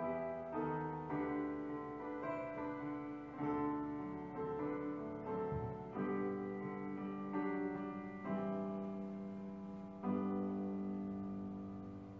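Solo piano music: slow melody notes struck about once a second over sustained chords, with a louder chord about ten seconds in.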